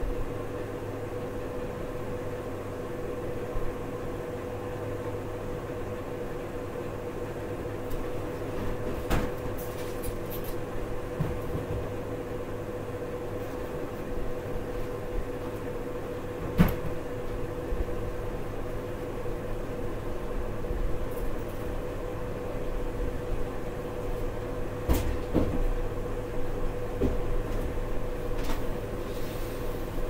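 A steady hum with a constant tone. A few scattered knocks and clunks sound over it, the loudest about halfway through and a small cluster near the end.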